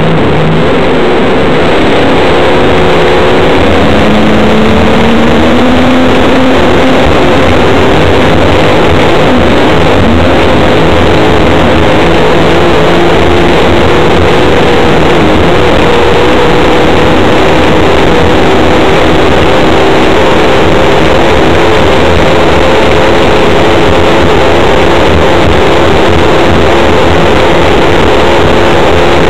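Grand Prix hydroplane racing engine at full throttle, heard from the cockpit during a speed-record run. It is very loud, climbs in pitch over the first few seconds, then holds steady at top speed.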